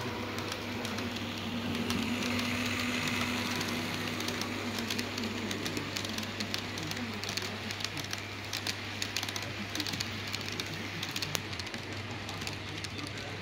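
N-scale model freight train running past: the electric locomotive's small motor gives a steady whine and hum in the first few seconds, then the wheels of the passing tank wagons give a stream of light, irregular clicks on the track.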